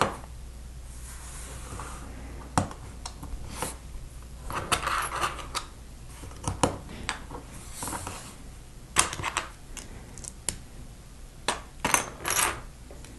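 Plastic Lego plates and bricks clicking and clattering as they are handled and pressed together onto a small model, in irregular sharp clicks bunched into a few flurries.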